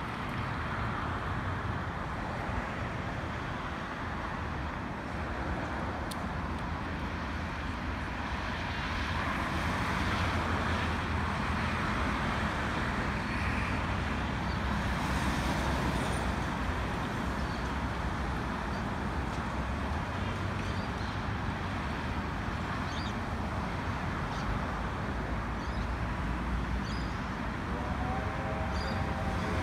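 Two Victorian Railways R class steam locomotives, R-761 and R-711, working up a grade in the distance, heard as a steady low rumble mixed with wind noise on the microphone. The rumble grows a little louder about a third of the way in.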